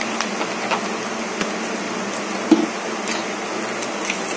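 Chopped onions and sweet corn sizzling in hot oil in a kadai, with scattered small pops and crackles and one louder knock about two and a half seconds in. A metal ladle begins stirring the mix near the end.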